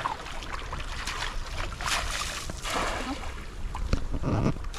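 Sea water sloshing around men wading waist-deep, with a loud splashing hiss about two seconds in as a thrown cast net lands on the water, and a smaller splash soon after.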